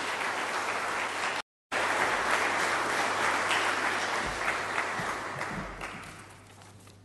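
Audience applauding, with a moment's dropout about one and a half seconds in; the applause dies away near the end, with a couple of low thumps under it.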